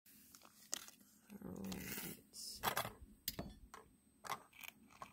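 Foil trading-card booster pack being handled, its wrapper crinkling in a series of short, irregular crackles and taps.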